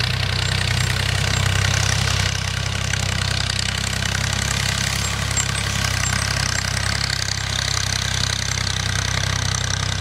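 Tractor engine running steadily with an even, low drone, as the tractor works a ploughed field.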